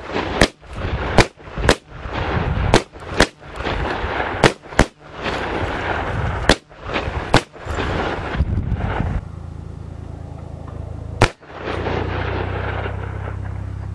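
Gunshots fired at a bulletproof glass test panel: about ten sharp cracks in quick, irregular succession through the first eight seconds, then one more shot after a short pause.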